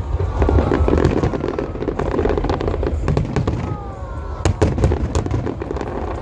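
Fireworks display going off: a rapid, dense run of bangs and crackles over a steady low rumble, with a cluster of the sharpest reports about four and a half seconds in.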